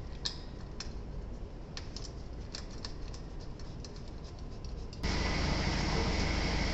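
Irregular sharp clicks and taps of parts and hand tools being fitted during reassembly in a truck's engine bay. About five seconds in, they give way abruptly to a louder, steady background noise.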